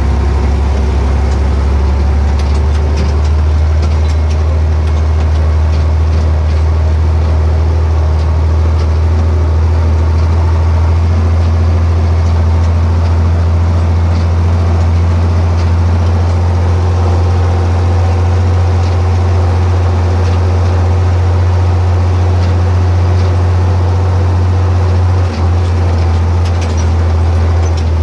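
John Deere 4020 tractor's six-cylinder engine running steadily at road speed, a loud, constant low drone heard from inside the open cab.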